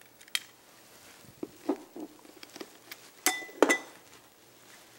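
Steamed cherrystone clam shells clicking and knocking against a clear glass bowl and metal tongs, in scattered light clicks. Two sharper knocks come about three and a half seconds in, one of them ringing briefly.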